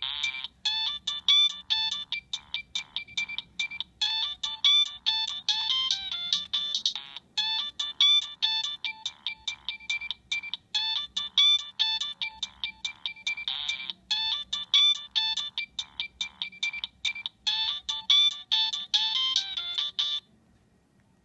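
Nokia 3586 mobile phone playing one of its built-in ringtones: a fast melody of short electronic beeps. It stops about twenty seconds in.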